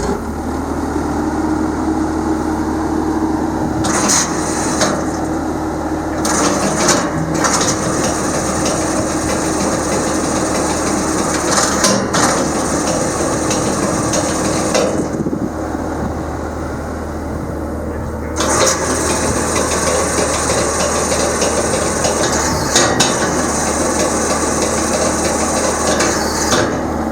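Skid steer engine running steadily, with scattered metallic knocks and rattles.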